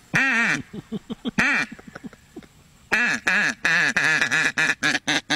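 Hand-blown duck call giving a long quack, a few short ones, then a fast run of quacks in the last couple of seconds, the caller's 'hahaha'.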